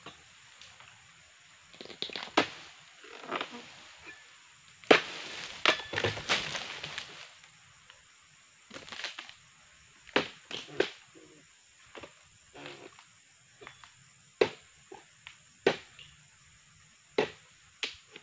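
Dodos chisel on a long pole chopping into oil palm frond bases: a string of sharp chops a second or two apart, with a longer crackling rustle of dry fronds about five to seven seconds in.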